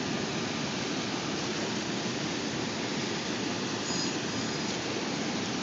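Steady rush of fast, choppy river water breaking into whitecaps along the shore.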